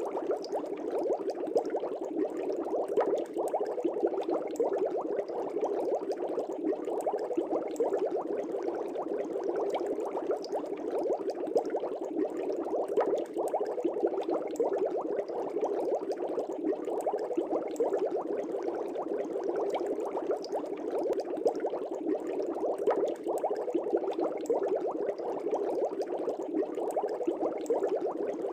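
Fish tank water bubbling steadily: a dense, unbroken stream of small bubble pops and gurgles.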